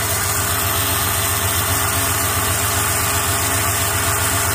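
1995 Chevy Suburban's V8 engine idling steadily while water is run through its cooling system to flush out rust.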